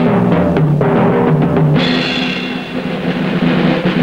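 Background film music: sustained pitched notes that shift every second or so, over drums.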